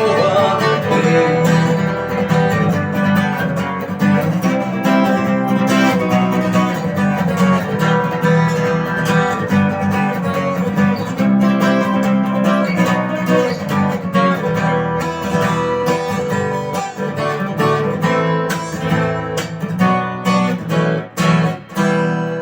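Acoustic guitar strumming chords in the song's instrumental outro. A few hard strokes come near the end, then the chords ring out.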